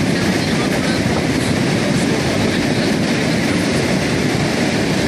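A river in flood, fast muddy floodwater rushing past, a loud steady rumbling noise.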